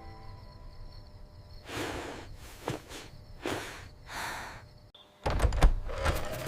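A few soft, breathy swishes, then, about five seconds in, a run of loud low thumps and sharp knocks.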